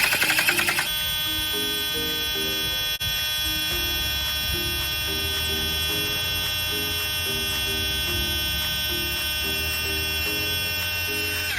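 12V mini car tyre air compressor running with a steady electric buzz. It pulses for about the first second as it starts, then runs evenly until it cuts off abruptly.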